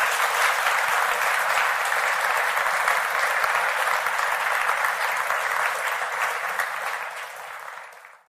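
Lecture audience applauding steadily after the talk ends, the applause thinning near the end before the recording cuts off.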